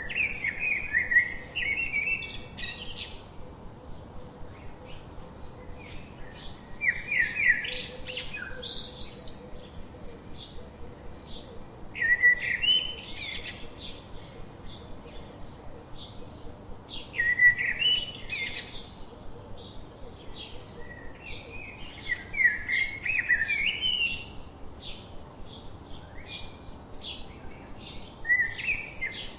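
Songbirds singing: one bird repeats a quick, warbling phrase of two to three seconds about every five seconds, and short chirps tick along in between.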